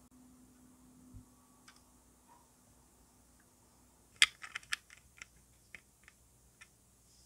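Hard plastic parts of a 1/24 Tamiya car kit clicking and knocking as they are handled and fitted together. A sharp click about four seconds in is followed by a quick run of lighter clicks over the next two seconds.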